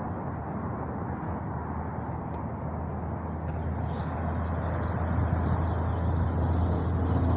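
Steady rushing rumble that sounds like a jet, with a low hum underneath, growing louder over the second half.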